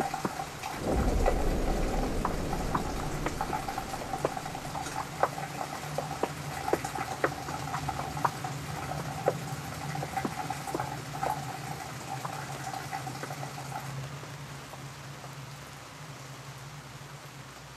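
Rain drops dripping and pattering onto hard surfaces as irregular sharp taps, several a second. A low rumble swells about a second in and fades over the next few seconds, and a steady hum underneath stops near the end.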